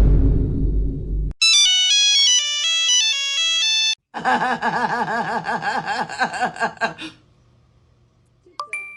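Edited-in music and sound clips. A loud low rumble cuts off about a second in, then a short melody of bright electronic beeps like a ringtone plays, then a few seconds of rhythmic music with a wavering tone that stops near the end.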